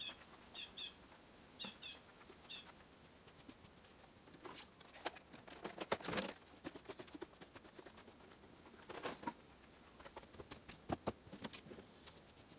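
A small bird chirps in short paired notes for the first couple of seconds. Then come scattered knocks and rattles as scrap appliances and junk are picked up and moved, with two busier spells of clatter in the middle and near the end.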